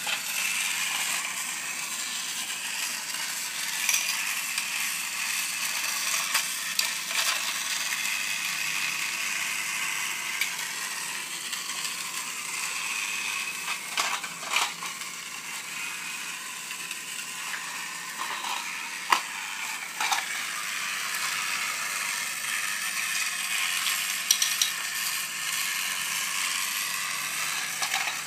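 Motorized Thomas & Friends toy train engine whirring steadily as its small electric motor and plastic gears drive it along plastic track, with a few sharp clicks, the loudest about two-thirds of the way through.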